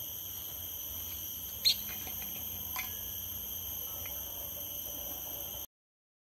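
Steady high-pitched insect chorus, several droning tones held without a break. A single short sharp chirp stands out about one and a half seconds in, with a fainter one a second later, and the sound cuts off suddenly near the end.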